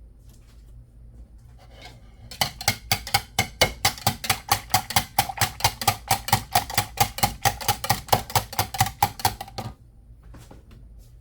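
Eggs being beaten with a utensil in a bowl: a fast, even run of clinks against the bowl, about five or six a second, starting a couple of seconds in and stopping near the end, with the bowl ringing faintly.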